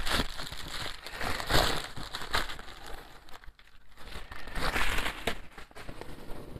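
Plastic bubble wrap crinkling and rustling in irregular bursts as it is unwrapped by hand, with a short lull about halfway.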